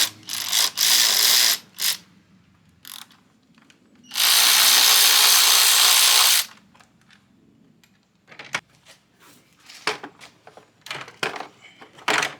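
Handheld power tool backing out the 8 mm engine cover bolts: a few short trigger bursts, then one steady run of about two seconds. After it come scattered light clicks and knocks.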